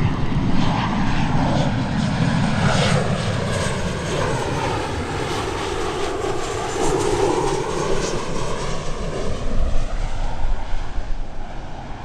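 Airliner passing low overhead on approach to land: a loud, steady engine rush whose hollow tone sweeps down and then back up as it goes by.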